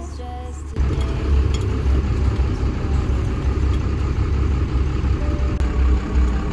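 Converted school bus's engine running, heard from inside the cabin while the bus drives, as a loud low rumble. It comes in suddenly just under a second in.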